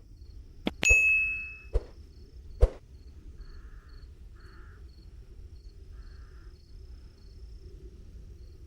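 A metal object struck, giving one loud clang about a second in that rings on briefly as a clear tone, among a few other sharp knocks in the first three seconds. A steady low rumble carries on underneath.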